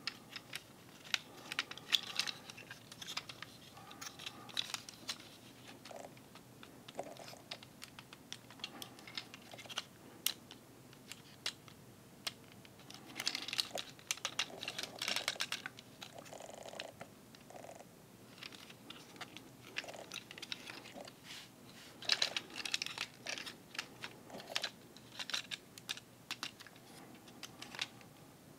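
Plastic Transformers action figure being transformed by hand: quick clicks and snaps of its plastic joints and panels, bunched into several flurries with light handling noise between them.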